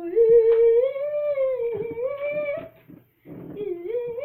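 A boy's voice holding one long, slowly rising drawn-out note for nearly three seconds, then a second shorter note that dips and climbs again near the end.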